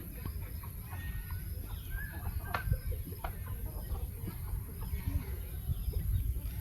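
Birds calling with short, soft notes over a steady low rumble, with one sharp click about two and a half seconds in.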